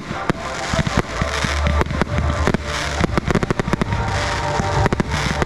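Aerial fireworks bursting: many sharp bangs and crackles in quick, irregular succession, over music.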